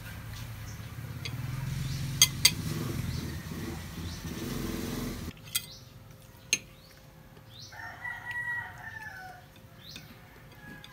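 Knife and fork clinking and scraping on a ceramic plate while a sandwich is cut: two sharp clinks about two seconds in and two more around six seconds. A low background rumble stops abruptly about five seconds in, and a drawn-out wavering call sounds in the background about eight seconds in.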